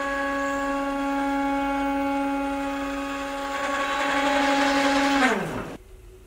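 Belt-driven Ooznest OX CNC carriage making a rapid move along the x-axis: the stepper motors give a steady, high whine at one pitch. About five seconds in the pitch falls quickly as the carriage slows, and it stops.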